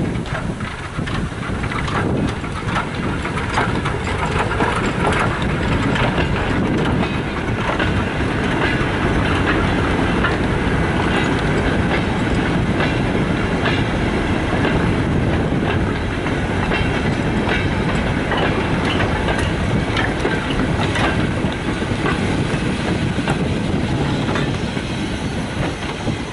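A steam goods train passes: a small saddle-tank locomotive hauling a rake of four-wheeled mineral wagons. The wagon wheels clatter over rail joints in many sharp clicks over a steady rumble, dying away at the very end as the train moves off.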